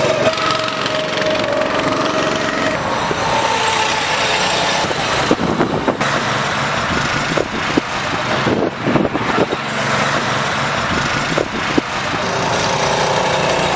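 Go-kart engines running as karts drive round the track: a steady small-engine drone whose pitch wavers as karts pass. Several brief thumps come in the middle.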